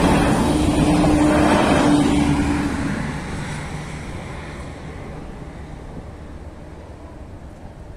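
A diesel multiple-unit train passing over the level crossing close by: the noise of its wheels and engine, with a steady hum, is loudest in the first two or three seconds and then fades away as it leaves.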